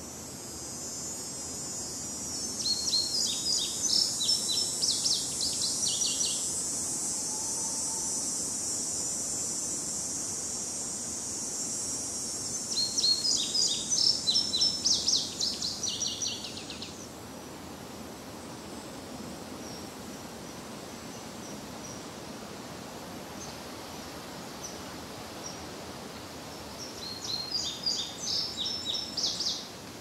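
Countryside daytime ambience. A songbird sings three quick phrases of high chirps, each a few seconds long: about two seconds in, around twelve seconds in, and near the end. Beneath it is a steady high cicada drone that fades out about seventeen seconds in, over a soft breeze through trees.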